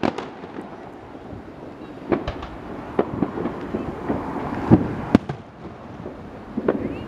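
Aerial fireworks shells bursting: several irregularly spaced booms and sharp cracks, the loudest about two-thirds of the way through, over a continuous low rumble.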